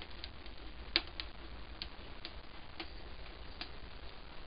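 Eggs frying in a pan on a wood-fired rocket stove: sparse, irregular sharp pops and clicks, the loudest about a second in.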